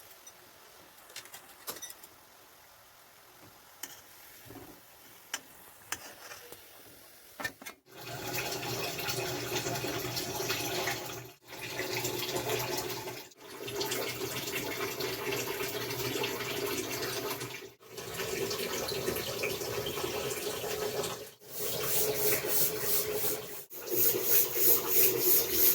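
Medu vadas frying in hot oil, a loud steady sizzle that begins about eight seconds in after a quiet stretch with a few faint clicks, and drops out briefly several times.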